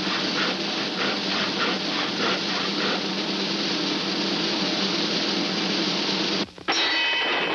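Cartoon sound effect: a steady rushing noise with no clear pitch, faintly pulsing at first, that cuts off abruptly near the end, followed by a burst of music.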